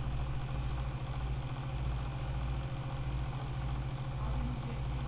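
Steady low mechanical hum of a running motor, engine-like, with no other event.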